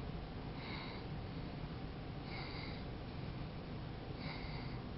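A person breathing through the nose in three short breaths, each with a thin whistle, about two seconds apart, over a steady low room hum.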